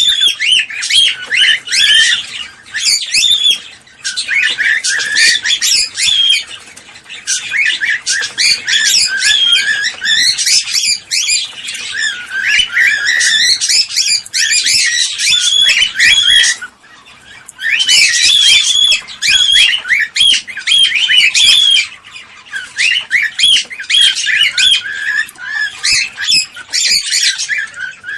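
Cockatiel chattering and whistling: long runs of rapid, short chirps and squawks, broken by brief pauses.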